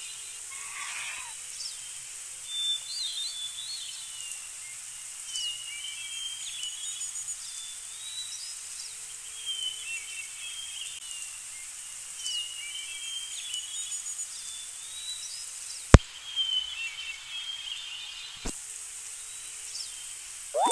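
Outdoor nature ambience: birds chirping in short phrases every couple of seconds over a steady hiss. Two sharp clicks come near the end, the first one loud.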